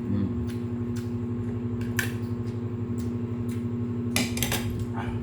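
A steady mechanical hum runs throughout, with short sharp crunches about two seconds in and again a little after four seconds: chewing crisp dried anchovies.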